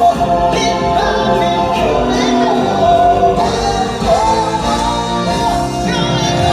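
Show-tune music with singing: sung melody with long held notes over a full band backing, played loud over the theatre's sound system.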